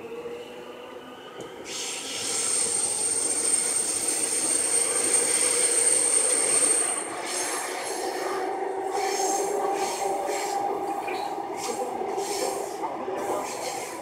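Seoul Subway Line 9 train running, heard from inside the car. About two seconds in, a loud rush of running noise with a high steady squeal comes in for about five seconds, then eases to a steadier running drone with a few clicks.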